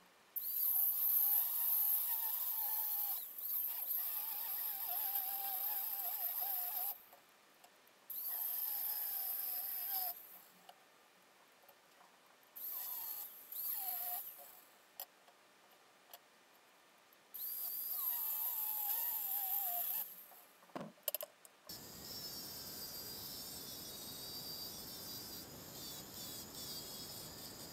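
Corded angle grinder with a cutoff wheel cutting steel plate in four runs of a few seconds each, with short pauses between them; its whine wavers and dips as the wheel bites. For the last several seconds only a steady, fainter hiss remains.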